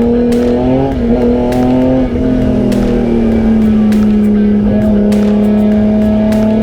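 Race car engine pulling under load, its note climbing slowly, with a brief drop in pitch about two seconds in, as at a gear change, then climbing again. Short sharp clicks run through it.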